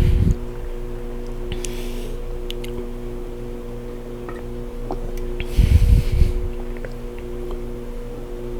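Two loud, low gusts of sound from a person's mouth right against the microphone, one at the very start and a longer one about five and a half seconds in, with a few faint wet mouth clicks between them. A steady hum of several low tones runs underneath.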